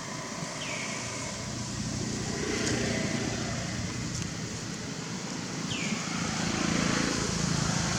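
Outdoor background noise with a low rumble that swells twice, like vehicles passing, and a short high falling chirp about half a second in and again near six seconds.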